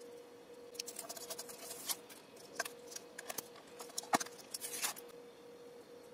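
Lid of a clear plastic dessert cup being handled and pulled off, with its paper label peeled away: a run of crinkling rustles and small clicks, the sharpest snap a little past four seconds in. A steady faint hum runs underneath.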